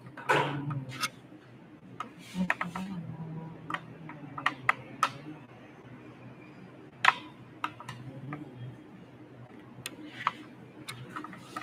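Scattered light clicks and knocks, irregular and a few a second at most, with one sharper click about seven seconds in, over faint distant talk.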